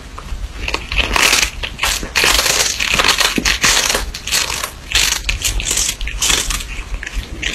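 A cat crunching on a dried fish with its side teeth: loud, close crunches that come in irregular bursts.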